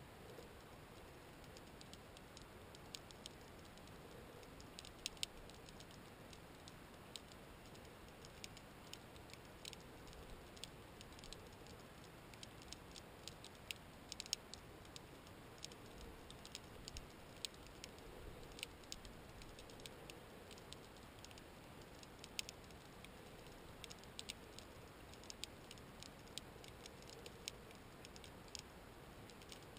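Faint underwater crackle: sparse, irregular sharp clicks, a few a second and some in quick clusters, over a steady low hiss.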